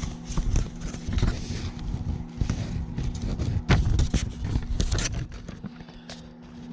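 A sheet of paper rustling and crackling as a folded letter is handled and opened out, with dull bumps from hands close to the microphone; it settles down after about five seconds.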